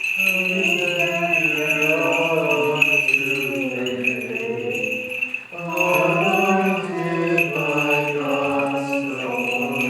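Congregation singing a Byzantine liturgical chant in unison, pausing briefly about halfway through, with small bells jingling throughout.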